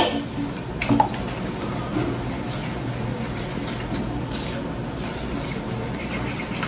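A fork clinks against a mixing bowl about a second in, followed by faint, soft, wet mixing of the milk, egg and sugar batter.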